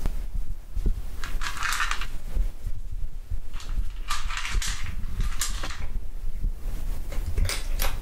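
A cat eating dry kibble, chewing in irregular bursts of crunching several times over, over a low steady hum.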